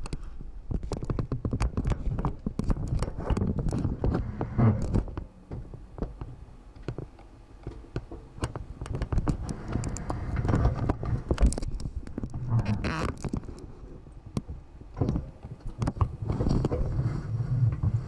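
Dishwasher running, heard from inside the tub: water spray splashing and pattering against the camera housing, over a low hum from the machine. The splashing swells and eases every few seconds.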